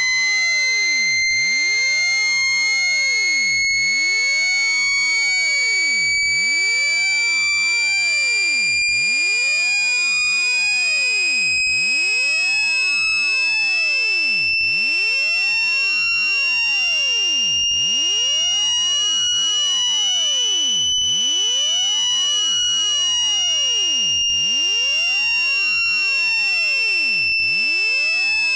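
Synthetic phone-speaker water-eject tone: a loud, steady electronic whistle with overtones. Its pitch glides slowly upward for most of the time, then eases slightly down near the end, with a brief tick about every second and a quarter. It is played at full volume so the vibration pushes trapped water out of a smartphone speaker.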